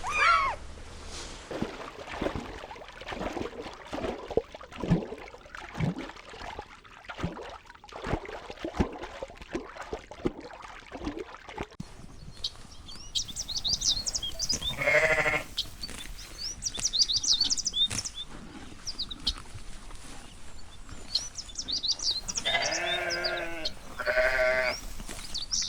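Sheep bleating: a wavering bleat about halfway through and two more near the end, over birds chirping. The first half holds only scattered short knocks and rustles.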